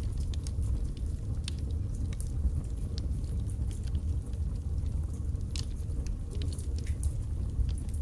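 Wood fire burning in a fireplace: a steady low rumble of flames with irregular small crackles and pops from the burning logs.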